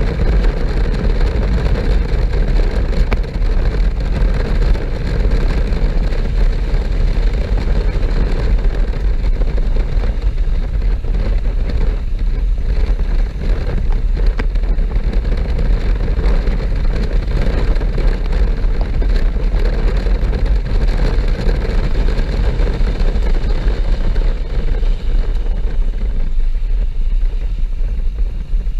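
Honda NC-series parallel-twin motorcycle riding steadily along a road at speed, its engine and road noise mixed with wind rushing over the microphone.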